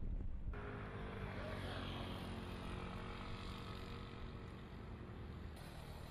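Wind rumble on the microphone, cut off suddenly about half a second in by an engine running steadily with a low hum.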